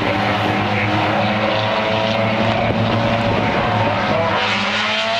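A pack of four-cylinder Honda Civic stock cars racing on a paved oval, engines running hard at high revs in a steady mixed drone, with one engine's pitch rising near the end as a car accelerates.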